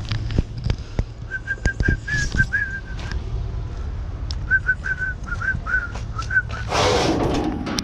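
Two runs of short whistled notes at nearly the same pitch, about four or five a second, over scattered clicks and knocks. A loud rustling burst comes near the end.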